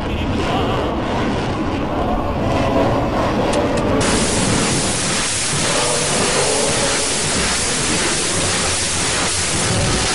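Salvo from a truck-mounted multiple rocket launcher: rockets firing in quick succession, heard as a continuous rushing roar. About four seconds in the sound cuts to a harsher, hissier roar as a launcher fires close to a vehicle.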